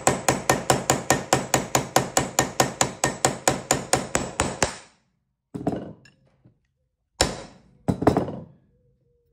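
Hammer rapidly tapping a rivet rounding tool down onto a clipped number 9 leather rivet, doming its cut end over the burr: an even run of sharp metal strikes, about six a second, that stops a little under five seconds in. It is followed by three separate knocks.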